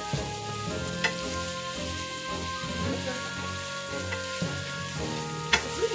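Food sizzling as it fries in a pan while being stirred, with a utensil clicking against the pan twice.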